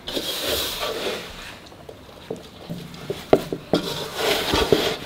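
Hands kneading a wet atta-and-semolina dough in a metal bowl: soft squelching and pressing, with a few short knocks and slaps in the second half.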